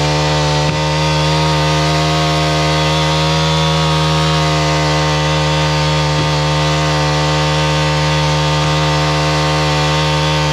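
Small gas engine of a portable winch running steadily at high speed while the winch drags a heavy log, then cutting off abruptly at the very end.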